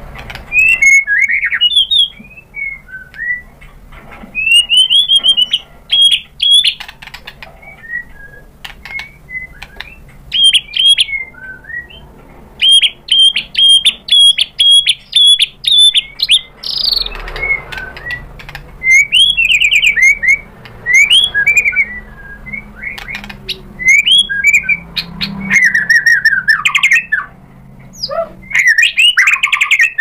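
White-rumped shama (murai batu) singing: loud, varied whistled phrases that swoop up and down, with a run of quick repeated notes about halfway through, followed by a single harsh rasping note.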